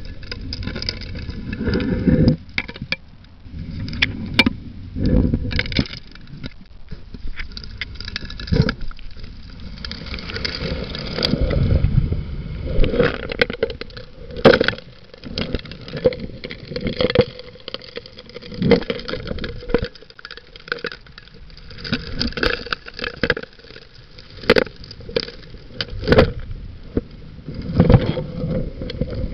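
Keene 4-inch suction dredge nozzle sucking gravel underwater: stones knock and clatter into it irregularly, with surges of low rushing rumble, over a faint steady hum.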